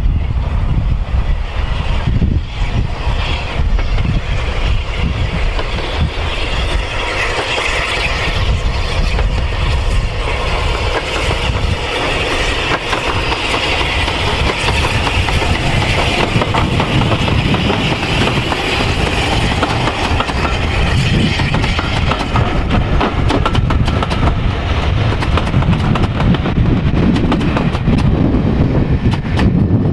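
SR unrebuilt Battle of Britain class Bulleid Pacific steam locomotive 34072 '257 Squadron', a three-cylinder engine, approaching and passing under steam, followed by its coaches rolling by on the rails.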